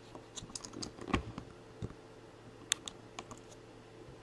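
Scattered key taps on a computer keyboard, a few quick ones then single clicks, with a duller knock just after a second in.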